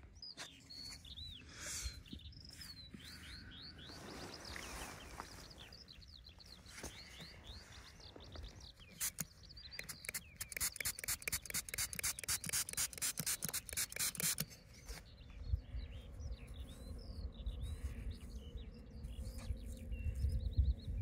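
Small birds chirping and calling. About ten seconds in comes a quick run of clicks lasting some four seconds, and near the end there is a low rumble.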